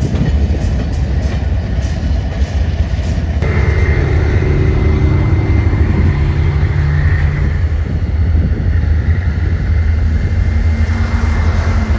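A train passing close by, with a heavy low rumble throughout. Faint regular clicks of wheels over rail joints come first. About three seconds in the sound changes abruptly to a steady engine hum with a faint high whine.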